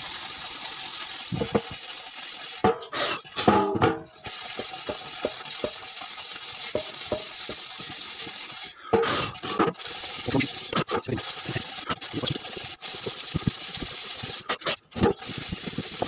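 Pan-scouring mesh scrubbed back and forth on a stainless-steel washing-machine drum, scouring off limescale and oxide: a steady scratchy scrubbing that breaks off briefly three times.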